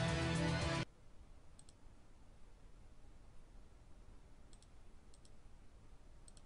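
Recorded music playing, cut off abruptly about a second in. Then quiet room tone with a few faint, sharp clicks, single and in pairs.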